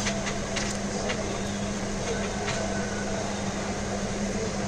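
Steady machine hum of the room, with a constant low drone, likely the repair shop's air conditioning. Over it come a few light clicks in the first second or so and once more about halfway through, from metal tweezers working along the phone's frame.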